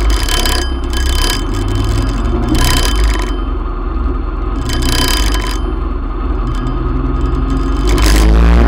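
Motorcycle engine running at low speed, with repeated gusts of wind noise on the microphone.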